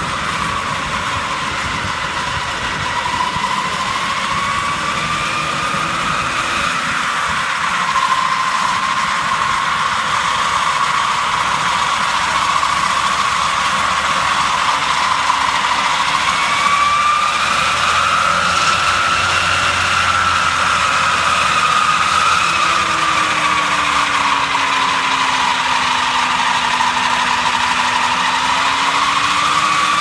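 Tractor engine running with a rear-mounted rotary disc mower spinning: a steady mechanical whine that drifts slowly up and down in pitch.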